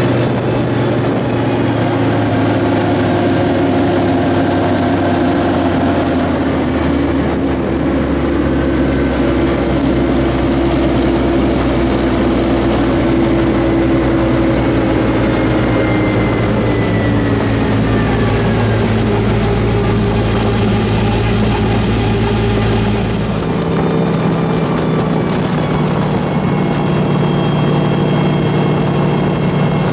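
Universal Hovercraft UH26S engine and caged propeller running steadily under way, heard from aboard the craft. The pitch slides gradually down around the middle, and the tone changes about three quarters of the way through.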